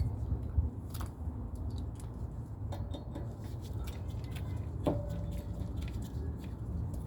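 Scattered light metallic clicks and taps of brake parts and tools being handled, with one ringing metal clink about five seconds in, over a low steady rumble.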